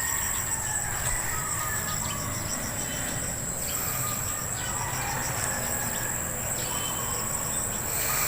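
Outdoor insect chorus: a steady, high-pitched shrill with a fast, even pulsing beneath it.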